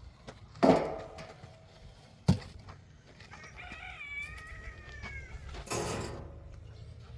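A long animal call of about two seconds, rising and then falling in pitch, in the middle, with two sharp knocks before it and a brief rough scraping burst after it.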